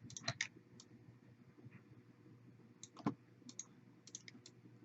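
Faint, irregular computer mouse clicks, coming in small groups of two or three.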